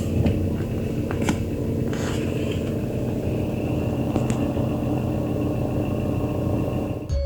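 Peugeot 308's engine running steadily, with a few light clicks.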